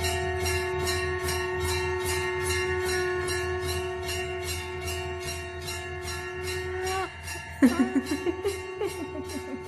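Background film music: a held drone-like tone over a steady jingling beat of about three to four strokes a second, then a sudden loud hit about three-quarters through with pulsing echoes that fade away.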